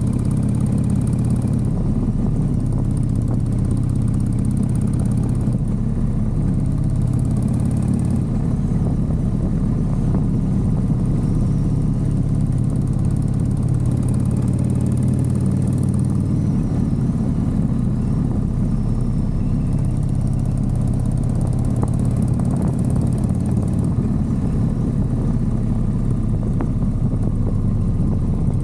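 Motorcycle engine running steadily, its note holding nearly level with small swells throughout.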